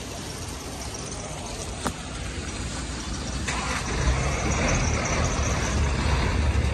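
A motor vehicle's engine running nearby, a low steady hum that grows louder about four seconds in, over the rustle and scrape of a woven sack being hauled out of a car boot.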